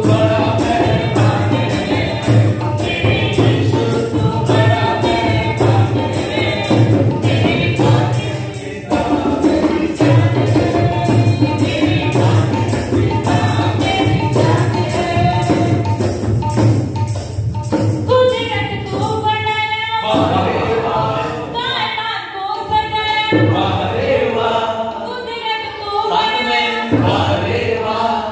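Group of men and women singing a Hindi Christian qawwali in chorus, with rhythmic hand-clapping and a dholak drum keeping the beat. The low accompaniment drops out briefly twice, leaving the voices to carry on.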